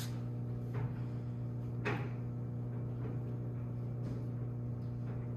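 Steady low electrical hum, with a light knock about a second in and another, sharper one about two seconds in.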